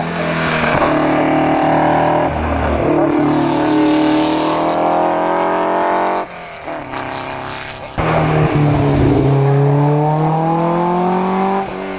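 Historic racing-car engines under hard acceleration on a wet road. An open-wheel single-seater revs up, dropping in pitch at a gear change about two seconds in and climbing again before it fades. After a sudden change near the middle, an Alpine A110's four-cylinder engine pulls hard with rising pitch and eases off near the end, over a hiss of tyre spray.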